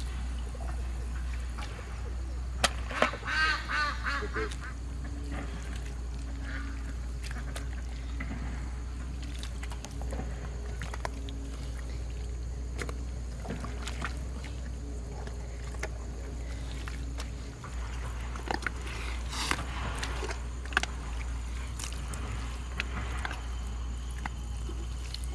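A bird calling in a quick run of repeated calls about three seconds in, with a few weaker calls a little past the middle, over a steady low rumble and a few scattered light clicks.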